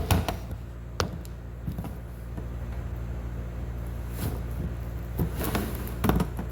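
A cabinet back-panel board being slid into the grooves of a flat-pack cabinet frame: scattered knocks and scraping as the panels are handled, with sharp knocks at the start, about a second in and a cluster near the end, over a steady low hum.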